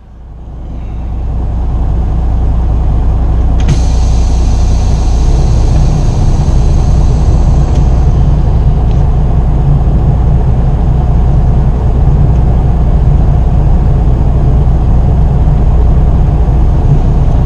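Freightliner Cascadia semi truck's diesel engine running, a loud steady low rumble heard from inside the cab. A hiss of air joins it from about four to eight seconds in.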